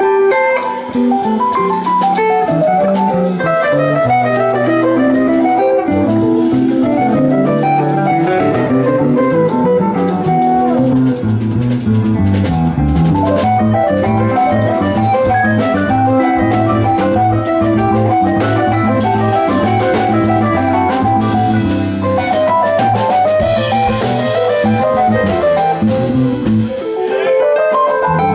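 Live rock band playing an instrumental jam: electric guitar lines over electric bass, keyboards and drum kit, with no singing.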